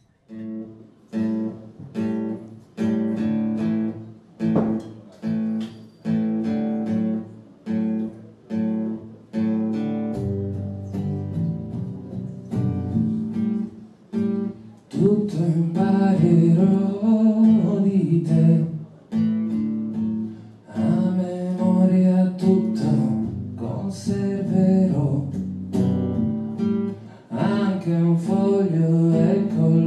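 Solo acoustic guitar opens a slow song, with notes struck about once a second. About halfway through, a man's singing voice comes in over the guitar.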